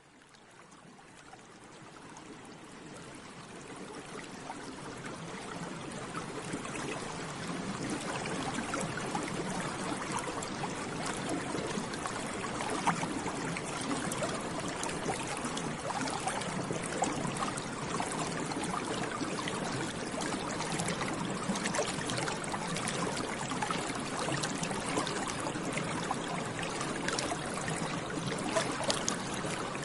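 Water bubbling steadily, a dense run of small bubble pops, fading in from near silence over the first several seconds.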